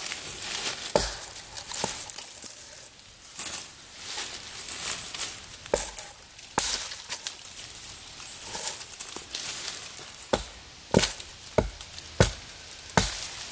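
Axe chopping branches off the trunk of a felled tree: about nine separate sharp strikes, a second or more apart at first and coming quicker near the end, with some rustling of branches between them.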